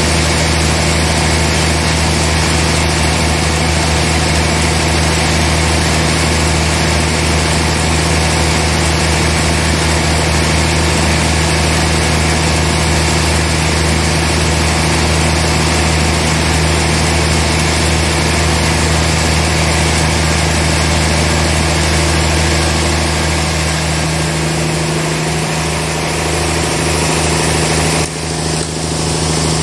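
Large log band saw running steadily with a deep, even hum while cutting through a trembesi (rain tree) log. The sound changes abruptly near the end.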